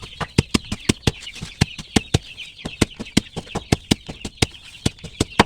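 Lemongrass stalks being chopped with a blade in quick, sharp strokes, about five a second. Young chickens peep steadily in the background.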